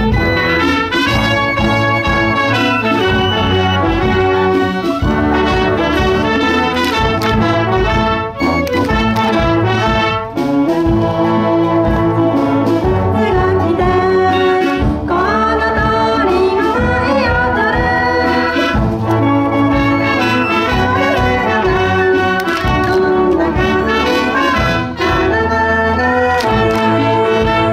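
School brass band playing an ondo, a Japanese folk-dance tune: trumpets, trombones and sousaphones over drums keeping a steady beat.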